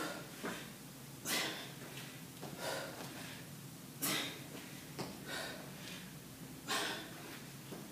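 A woman breathing hard from exercise: a sharp, forceful exhale about every three seconds, with softer breaths in between.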